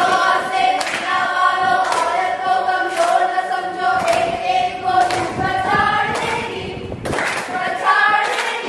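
A group of young men and women singing together in unison, clapping their hands in time about once a second.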